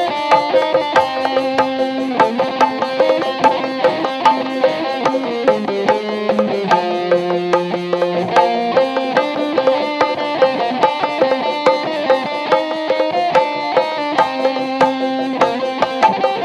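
Sundanese benjang procession music played live: a steady drum beat and struck hanging gongs under a winding melody of held notes that shift in pitch.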